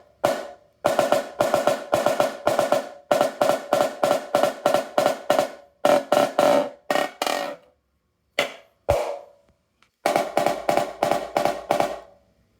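Snare drum played in quick runs of strokes and a few single hits, each stroke ringing at one clear pitch, with the snare wires off.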